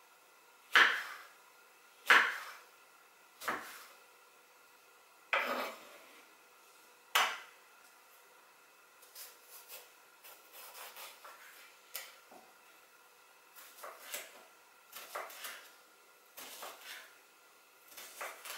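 Kitchen knife cutting through an aubergine and striking a wooden cutting board: five sharp chops spaced a second or two apart, then softer, quicker cuts in small clusters through the second half.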